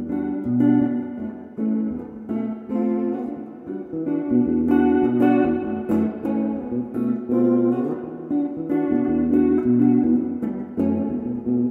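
Background music led by guitar, a steady run of plucked notes.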